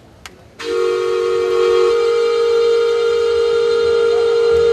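Imitation train whistle: one long, steady whistle of two close pitches, starting about half a second in and holding for about four seconds.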